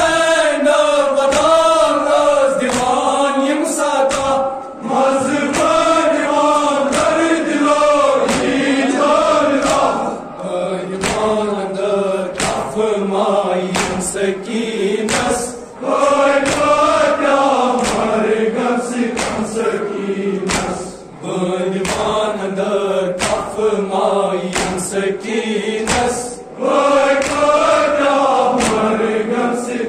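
A group of voices chanting a Kashmiri noha, a Muharram lament, in unison, in phrases that break briefly about every five seconds. Sharp beats, about one a second, keep time under the chant.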